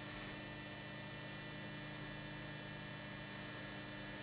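Steady electrical hum with a faint hiss, unchanging throughout; no other sound.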